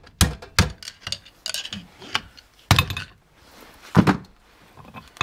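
Hammer and screwdriver knocking on a Dana 30 differential carrier, a series of sharp metallic knocks and clinks, the loudest about four seconds in, as stubborn parts are driven out of the carrier.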